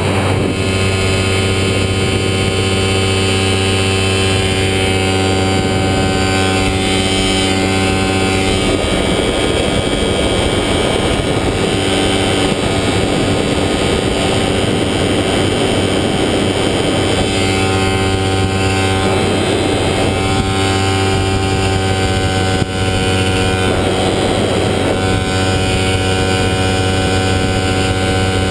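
Falcon XP ultralight's engine and propeller droning steadily in cruise, heard from the cockpit with rushing wind on the microphone. The even engine note wavers for several seconds in the middle.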